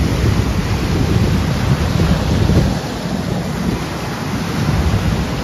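Strong wind buffeting the microphone in gusts, a heavy rumble that eases about three seconds in, over the wash of choppy lake waves.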